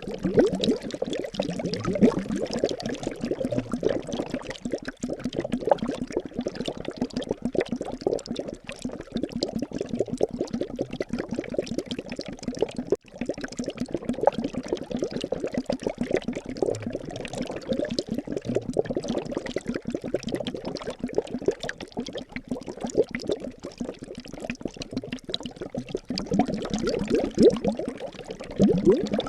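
Liquid bubbling steadily, a dense stream of small bubbles gurgling and popping many times a second, with a momentary break near the middle.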